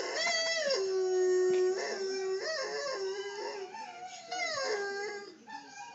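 A dog howling in a run of long drawn-out notes, one held steady for about a second and others rising and then sliding down in pitch.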